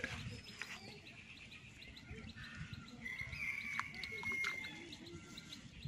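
Small birds chirping and calling, with a short whistle early on and a held note lasting about a second and a half about three seconds in.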